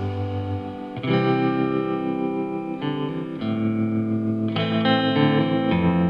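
Background instrumental music: held chords that change every second or so.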